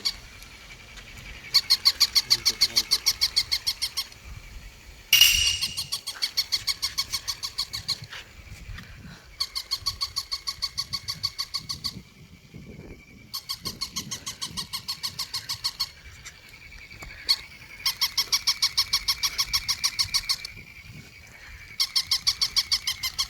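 Battery-powered shiba inu toy dog sounding a rapid, evenly spaced electronic yapping, about eight pulses a second, in bursts of about two and a half seconds with short gaps between, six times over. A steady high whine runs underneath, and a sharp click opens the second burst.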